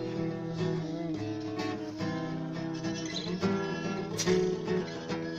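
Acoustic guitar strumming chords in a steady rhythm, an instrumental passage of the song with no singing.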